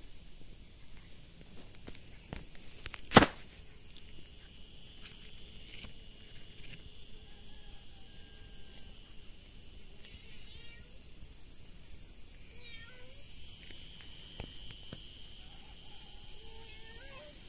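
Insects shrilling steadily in dry scrub, growing louder about two-thirds of the way through. A single sharp click comes about three seconds in, and a few short animal calls sound near the end.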